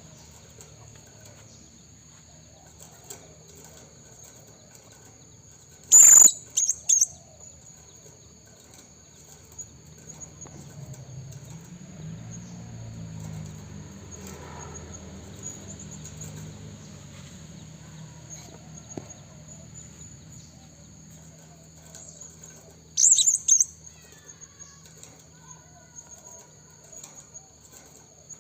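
Blue-crowned hanging parrot (serindit) giving short, shrill, very high calls in two quick clusters, about six seconds in and again near 23 seconds. A steady high insect drone runs underneath.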